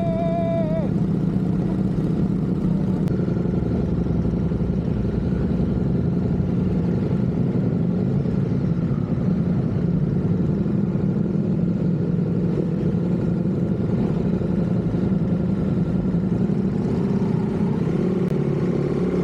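Motorcycle engine running at a steady drone, with no revving. A short high tone sounds in the first second.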